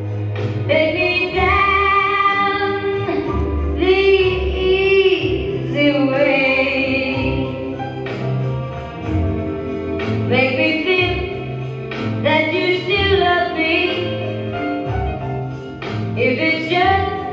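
Recorded song: a woman singing held, wavering notes over a bass accompaniment.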